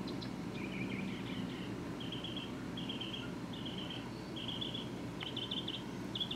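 Outdoor background with a low steady rumble, over which a small animal repeats short buzzy chirps a little faster than once a second.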